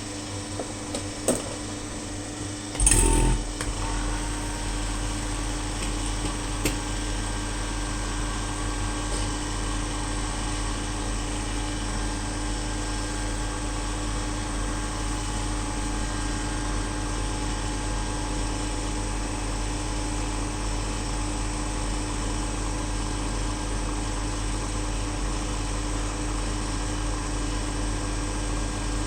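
Steady mechanical hum of a running machine, with a short loud knock about three seconds in, after which the low hum is stronger.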